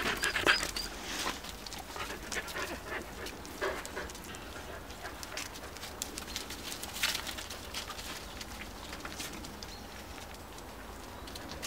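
Finnish Lapphund puppies and an adult dog tussling on paving strewn with dry leaves: paws scuffling and rustling the leaves in many small clicks. A few short high squeaks come in the first second.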